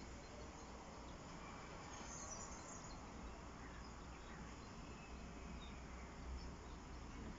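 Faint outdoor ambience: a steady low background noise, with a few faint high chirps about two seconds in.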